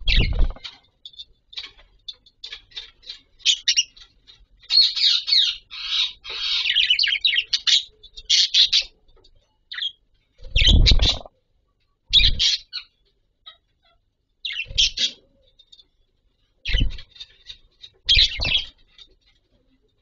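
Caged budgerigars chirping and warbling in quick, high twitters, busiest in the first half. About six short, louder noises of birds moving about cut in among the calls, the loudest about eleven seconds in.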